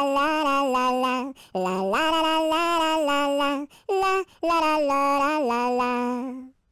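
A high voice singing a nursery-rhyme song in short phrases of held notes, stopping about six and a half seconds in.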